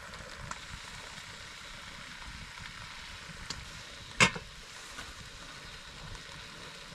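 Quiet steady hiss with a few faint ticks, broken by one sharp clank of blue enamelware being handled about four seconds in.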